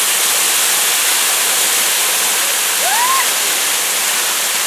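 Waterfall rushing, a loud, steady roar of falling water. A brief rising-and-falling chirp sounds over it about three seconds in.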